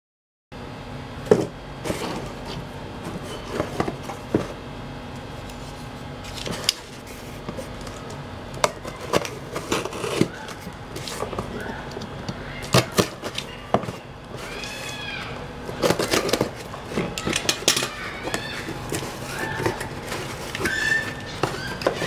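Unboxing a parcel by hand: a box cutter slicing packing tape and plastic wrap, then cardboard flaps being pulled open and rustled, with irregular clicks and knocks against a wooden table. The sounds start about half a second in.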